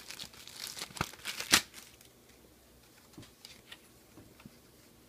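Thin clear plastic bag crinkling and crackling as it is handled and opened, with the sharpest crackle about a second and a half in. After two seconds it gives way to a few faint rustles of a folded paper manual being opened out.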